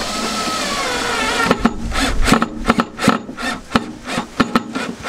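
Cordless drill driving a screw through a plastic broom-holder clip into a plywood panel. The motor whines steadily at first; from about a second and a half in it runs in short pulses broken by a string of sharp knocks and clicks as the screw bites and seats.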